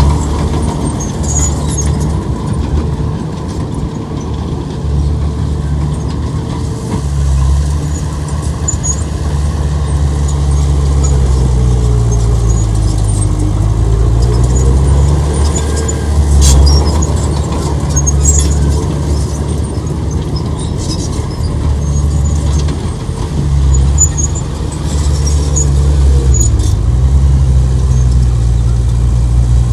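Heavy diesel engine of earthmoving machinery running steadily, its pitch sagging and recovering twice as it takes up and sheds load. Occasional short sharp clicks sound over it.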